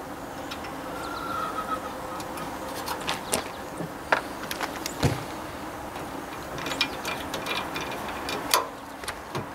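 Scattered light metal clicks and knocks of bolts and a sheet-metal radiator shroud being handled and lined up on a tractor, with a sharper knock about five seconds in.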